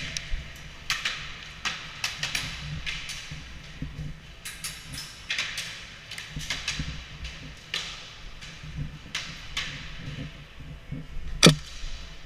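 Airsoft guns firing scattered single shots and short strings of shots, sharp snapping cracks at irregular intervals, with one louder crack near the end.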